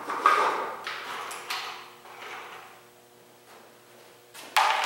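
Small wooden parts being handled and set down on a workbench: a few hollow wooden clunks in the first second and a half, then a sharp knock near the end.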